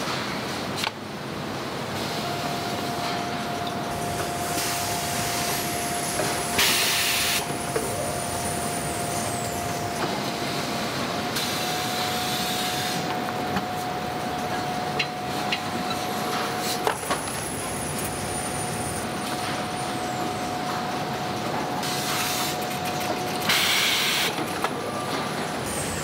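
Industrial steam iron pressing a coat: short bursts of steam hiss, three of them, over a steady rushing hiss from the pressing equipment, with a faint steady whine.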